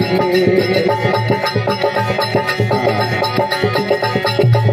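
Instrumental passage of a folk bhajan: a harmonium melody over a steady drum rhythm.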